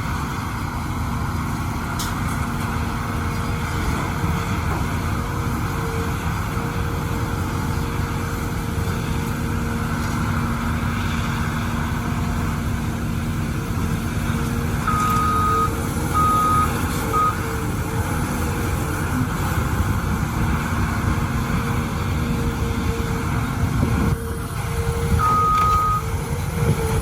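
Excavator's diesel engine running steadily under load, with a warning alarm beeping a few times about midway and once more near the end.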